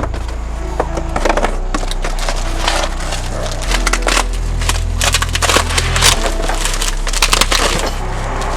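A rap track plays with deep, held bass notes that change every second or two, while close crackling and clattering from handling goes on over it.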